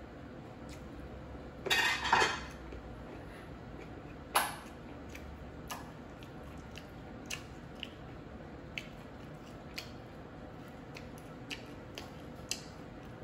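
Eating at a table with plates: a loud crunchy rustle about two seconds in, a sharp clink of a dish a couple of seconds later, then soft scattered clicks as chicken wings are picked apart by hand on a plate.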